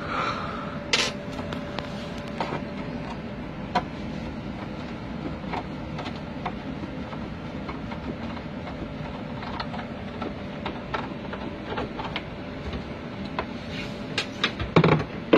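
Light scattered clicks and knocks of a screwdriver and a metal access door as the screws holding an aircraft galley access panel are taken out, over a steady machine hum with a held tone. A quick run of louder knocks comes near the end.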